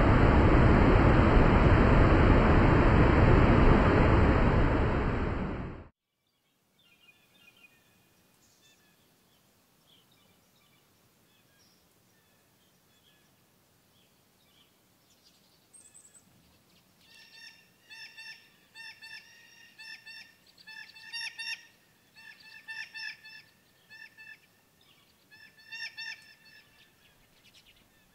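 Loud, steady rush of turbulent water that cuts off abruptly about six seconds in. After a few nearly silent seconds, birds start calling, faintly at first and then in clusters of short, repeated calls through the second half.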